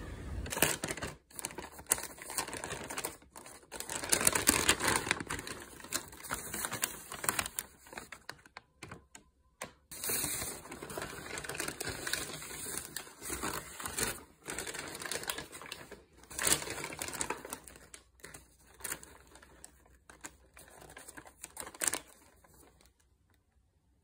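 Brown paper bakery bag and the white paper around a croissant crinkling and rustling in irregular bursts as the bag is unfolded and opened, stopping near the end.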